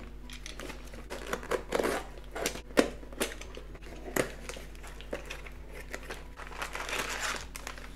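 A taped cardboard parcel being cut and torn open with a utility knife and by hand: scraping, tape and cardboard tearing, and sharp clicks, with a stretch of crinkling near the end as the flaps come open.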